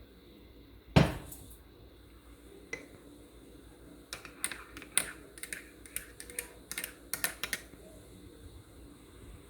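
Kitchen utensils knocking and clicking: one sharp knock about a second in, then a quick irregular run of light clicks and taps for about three seconds.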